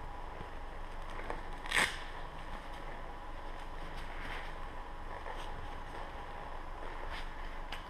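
Rustling and scraping of fingerless riding gloves being pulled on and a leather jacket shifting close to the microphone, with one louder scrape about two seconds in and a few soft ticks, over a faint steady hum.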